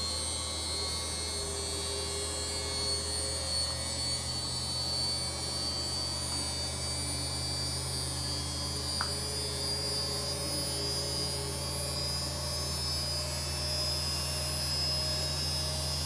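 Bosch Maxx 6 VarioPerfect washing machine spinning at top speed, about 1400 rpm: a steady motor hum with a thin, steady high whistle. The whistle comes from newly replaced carbon brushes in the motor that are still bedding in.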